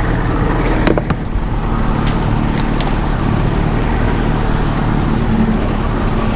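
Twin Yamaha outboard motors running steadily at high-speed trolling speed, mixed with rushing wake water and wind noise. A few sharp clicks sound about a second in.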